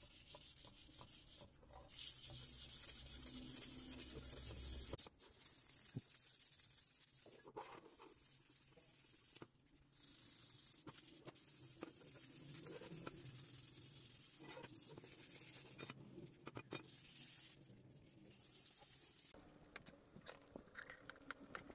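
Sandpaper rubbing along a metal bicycle handlebar: hand sanding in back-and-forth strokes, a faint hiss with brief pauses.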